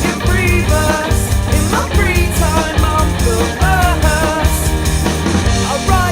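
Rock music with a singer over electric guitar, bass and drums.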